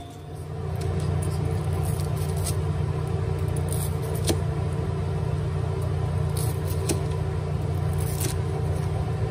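A chef's knife slicing through crisp fried pork cutlets, crunching through the breading and knocking a plastic cutting board in a few sharp, irregular clicks. A steady low hum runs under it.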